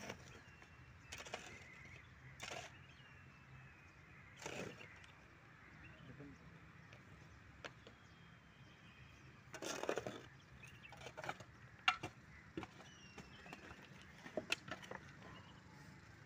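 Scattered short scrapes and crunches in dry, stony soil, from a shovel and feet working the ground. A longer scrape comes about ten seconds in and a quick run of them near the end, with faint bird chirps behind.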